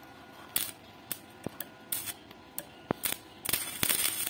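Stick-welding electrode being struck on steel: scattered sharp clicks as the rod touches and sparks, then about three and a half seconds in the arc catches and crackles steadily. The inverter welder is running at about 120 A off a double-battery home inverter, which the owner says sags under the load.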